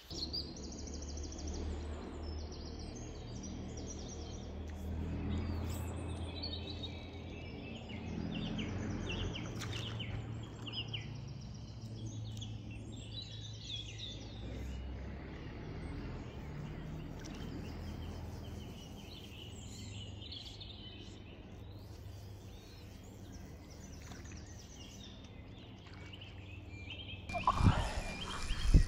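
Birds singing and calling over a low, steady background rumble. A brief louder noise comes near the end.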